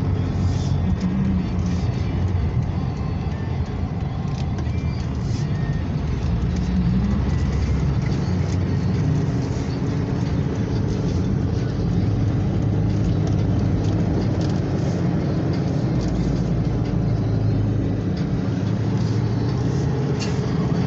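Ford Ranger pickup's engine running steadily, a low, even hum with light music underneath.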